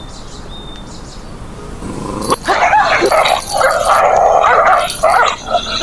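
Dog-fight sound effect: dogs snarling, starting suddenly about two seconds in after a quiet start and running on loudly and without a break.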